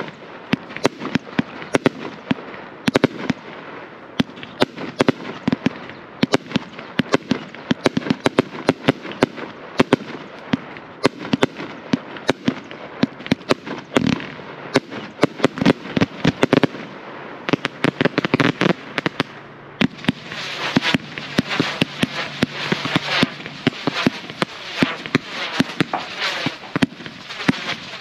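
Consumer firework cake firing continuously, a rapid string of sharp pops and bangs as shots launch and burst. The shots break into crackling stars. About twenty seconds in, the crackle becomes much denser and brighter.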